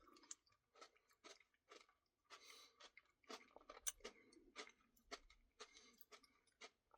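Faint chewing and mouth sounds of a person eating a Dairy Queen Blizzard with cookie pieces: a dozen or so soft, irregular smacks and clicks.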